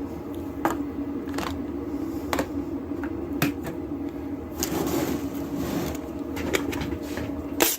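Small sharp clicks and taps of lock pins and the deadbolt cylinder being handled as new pins are loaded, with a brief rustling scrape midway and the loudest click near the end, over a steady background hum.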